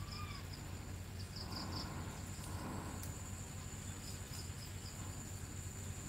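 Insects calling: a steady high-pitched drone with short trains of chirps every second or two, over a low hum. A brief whistled bird note sounds right at the start.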